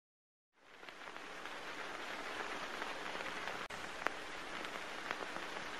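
Steady crackling hiss fading in about half a second in, with a few faint clicks.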